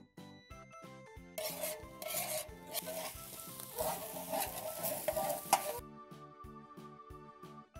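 Fried rice sizzling on a hot pan while metal spatulas stir and scrape it. The sizzle and scraping start about a second and a half in and stop after about four seconds, over background music.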